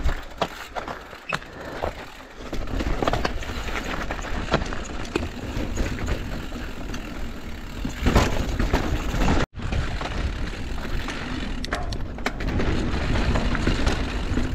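Mountain bike riding fast down a dirt and rock trail: tyres rolling over dirt and rock, with clicks and rattles from the bike and a steady rushing noise. It gets louder about two seconds in, and cuts out for an instant about two-thirds of the way through.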